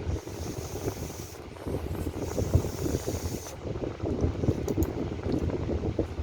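Air from an electric fan blowing across the microphone: a steady, uneven low rumble of wind noise with a faint hiss over it for the first few seconds.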